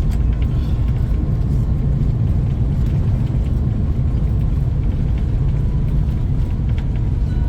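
Steady low rumble inside the cabin of an Airbus A350-900 airliner, even and unbroken, with a faint thin tone above it.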